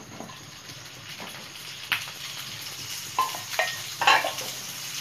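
Whole pointed gourds (parwal) sizzling steadily as they fry in hot mustard oil in a pan. A few sharp knocks and scrapes against the pan come between about three and four seconds in.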